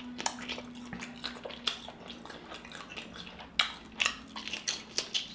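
Close-miked eating sounds: wet mouth clicks, lip smacks and chewing as a man bites and chews a piece of seafood-boil food, coming as scattered short clicks that get more frequent in the second half.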